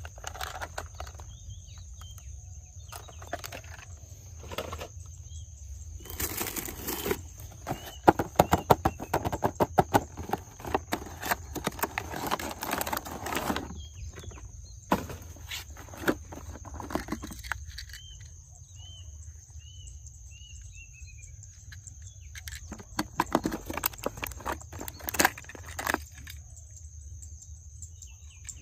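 Toy cars being handled: irregular plastic clicks, rattles and scuffs, densest from about six to fourteen seconds in and again near the end, over a steady low hum and a thin high whine. A few short high chirps come around twenty seconds in.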